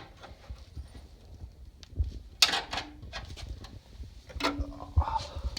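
A few scattered sharp knocks and clicks, with dull thuds, as of hardware and parts being handled, the loudest about two and a half seconds in and again near the end, where a brief low squeak-like tone also sounds.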